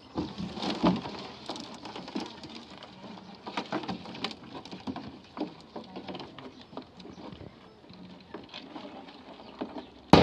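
Live freshwater crabs scrabbling in a plastic crate: irregular clicks and taps of legs and shells on the plastic, with one sharp loud knock near the end.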